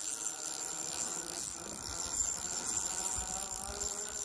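Spinning reel being cranked to bring in a hooked trout, with a steady whir from its gears.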